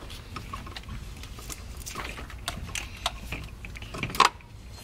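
Light plastic clicks and rustling as a bundle of spark plug ignition wires is pulled up out of the engine bay, with a sharper click about four seconds in.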